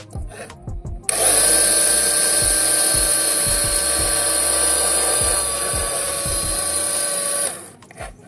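A small electric motor running steadily at high speed with a whine. It switches on abruptly about a second in and cuts off near the end.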